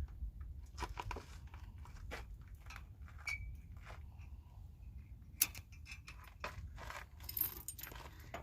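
Light metal clinks and clicks of trailer hitch hardware being handled, scattered irregularly with one sharper click past the middle and a flurry near the end, over a steady low rumble.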